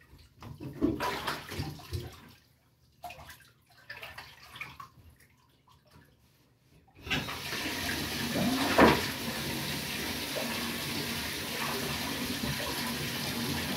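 Bath water splashing in short, irregular bursts, then about seven seconds in water starts running steadily, with a brief louder surge shortly after.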